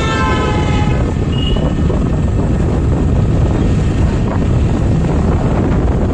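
Steady low rumble of wind and road noise from riding in a moving vehicle through traffic. A vehicle horn sounds and stops about a second in.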